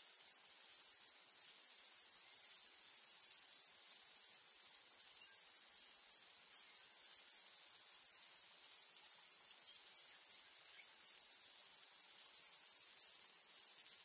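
A steady, high-pitched insect chorus: an even, shrill hiss that holds without pause or change.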